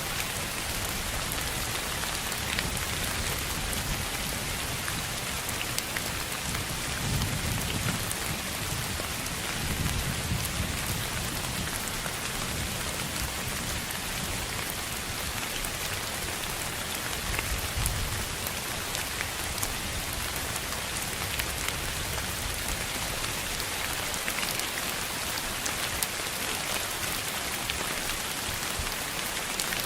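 Steady, even rain-like hiss with fine scattered ticks, and a few soft low rumbles about 7, 10 and 18 seconds in.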